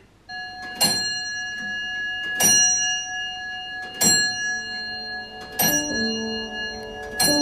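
Longcase clock's bell striking the hour: five even strikes about one and a half seconds apart, each ringing on. Piano music comes in beneath from about halfway.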